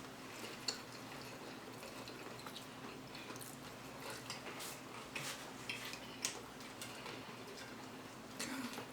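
Quiet eating sounds: scattered soft clicks and smacks of chewing and mouth noises, a dozen or so spread unevenly, over a faint steady hum.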